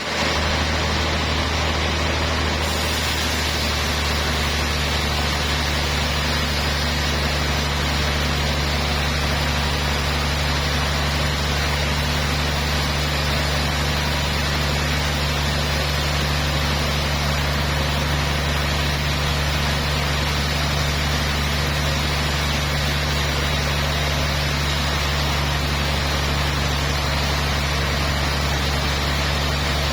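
Sawmill machinery running steadily: a constant low motor hum with an even hiss over it. A little more high hiss comes in about three seconds in.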